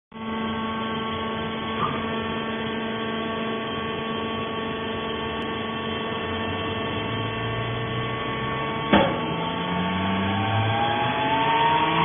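Vertical hydraulic baler's electric motor and hydraulic pump running with a steady hum. There is a small click near two seconds in and a sharp knock about nine seconds in. Over the last few seconds a whine rises in pitch.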